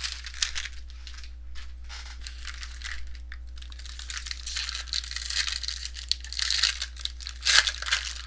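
Trading card box and pack being opened by hand: crinkling and tearing of the wrapper with many small clicks as the cards are handled, busier about halfway through.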